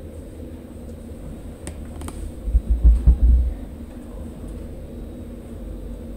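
Steady low indoor hum, with a short burst of deep, low thumps a little before the middle.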